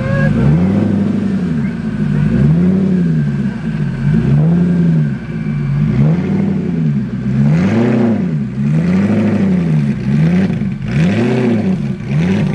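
An engine revved up and back down over and over, a rise and fall in pitch about every second and a half.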